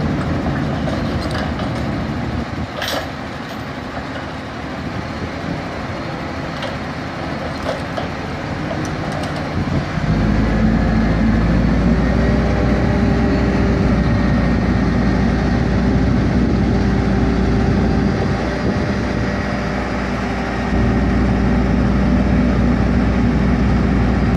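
Terex mobile crane's diesel engine idling with a few light knocks, then speeding up about ten seconds in and holding a steady higher speed as the hoist lifts a chain-slung steel load.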